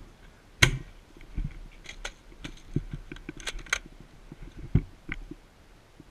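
A string of about nine sharp clicks and knocks at uneven intervals, the loudest just over half a second in.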